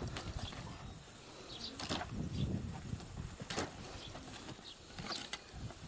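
Firewood log rounds being handled and tossed off a wooden hand cart, a few dull knocks of wood on wood, over a steady high chirring of insects.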